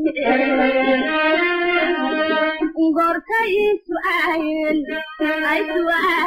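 A high voice singing a slow melody in long held, wavering notes, in phrases with short breaks between them.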